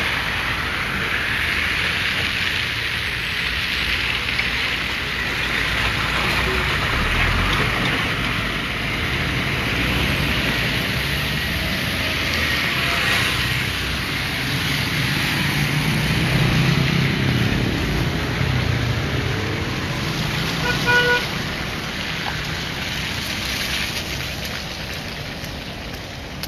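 Road traffic on a wet street: a steady hiss of tyres on wet asphalt with passing car engines, a heavier engine rumbling past about two-thirds of the way through, and a short car-horn toot near the end.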